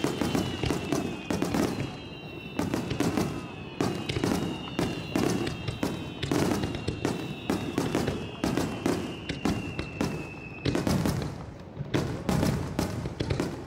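Fireworks display: a rapid barrage of bangs and crackles. Over it sound several high whistles at once, slowly falling in pitch, which stop about eleven seconds in.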